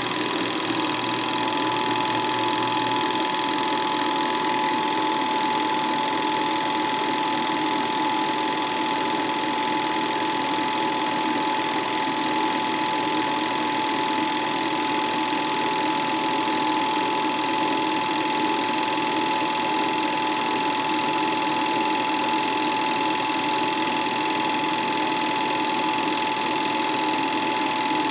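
Home-movie film projector running: a steady mechanical whir with a constant whine.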